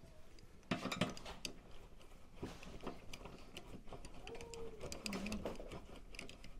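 Scattered light metallic clicks and clinks from a hand ratchet and bolts being worked into a steel tailgate bracket, in short irregular bursts.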